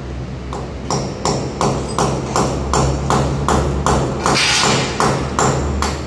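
Hammer blows on metal overhead, about three a second, each with a short high ring, with a brief harsher noise about two-thirds of the way through.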